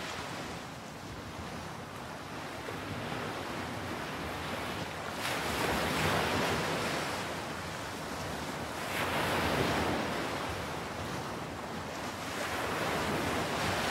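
Ocean surf washing in. The noise of the waves swells and eases three times, about every three to four seconds.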